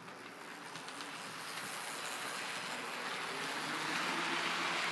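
HO scale model locomotive running on the track, a whirring of its electric motor and wheels that grows steadily louder over the first few seconds as the throttle is turned up, then holds steady.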